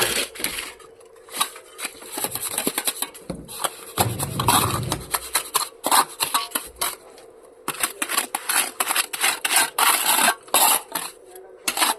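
Bricklaying: a steel trowel scraping and spreading mortar on bricks in a quick run of short scrapes and taps, with a heavier stretch of rubbing about four seconds in.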